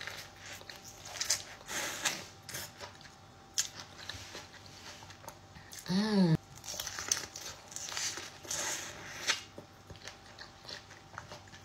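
Sweet corn on the cob being bitten and chewed close up, with a series of short crunching bites and chewing clicks. A brief hummed "mm" comes about six seconds in.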